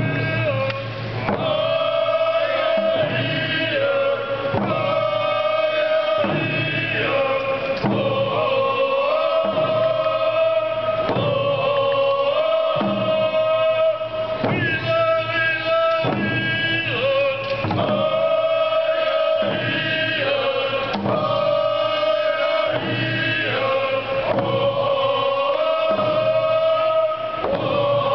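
A group of Native Northwest Coast singers chanting a traditional song together in long held notes, over hand drums struck in a slow, steady beat about once a second.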